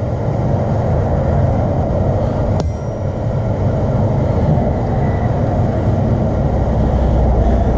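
Steady low roar of a running blacksmith's forge, with one sharp metallic tick and a brief ring about two and a half seconds in.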